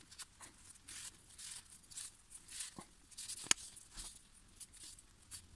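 A cloth rag rubbing around a chainsaw clutch drum, heard as soft, irregular swishes, with one sharp click about three and a half seconds in.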